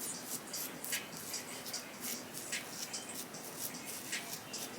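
Small edge control brush making quick, scratchy brushing strokes through hair, several short strokes a second.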